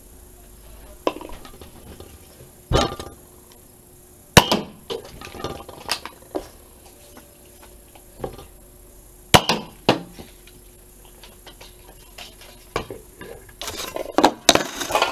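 Nerf Mega Bigshock dart blaster being primed and fired at a wall target: two loud sharp snaps about five seconds apart, each followed by lighter knocks as the dart strikes and drops, with smaller clicks between. Rustling handling noise near the end.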